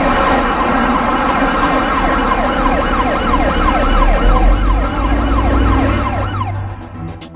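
Emergency siren in a fast yelp, its pitch sweeping about three times a second, over a dense din of steady tones and a deep rumble. The din fades out near the end.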